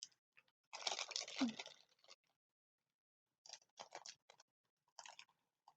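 Plastic packaging crinkling in three short bursts as it is picked at by hand to get it open without a knife.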